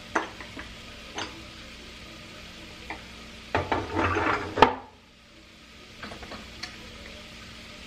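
Pieces of beef rib sizzling as they fry in a pan, with a spoon stirring and clicking against the pan now and then. About three and a half seconds in there is a busier spell of stirring and scraping that ends in a sharp knock.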